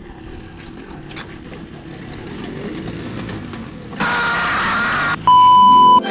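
Engine and road noise from motorbikes on a gravel road. About four seconds in, an edited-in screaming sound effect cuts in for about a second. Near the end comes a loud, steady test-pattern beep lasting under a second.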